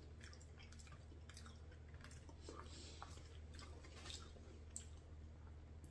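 Faint chewing of a mouthful of rice and potato, with light clicks of a fork in a foam takeout container, over a low steady hum.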